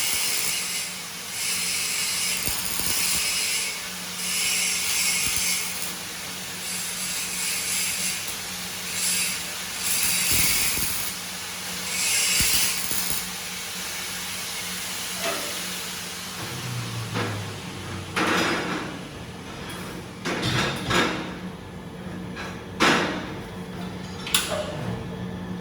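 Semi-automatic (MIG/CO2) welding arc hissing and crackling in a series of short runs with brief pauses, over a steady low hum. In the second half the arc stops and scattered sharp metal knocks and clanks follow.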